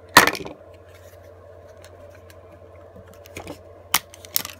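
Plastic clicks and clatter from an electric razor's casing being handled and pried apart: a sharp click with a short rattle at the start, a few small clicks later, and two more sharp clicks near the end, over a low steady hum.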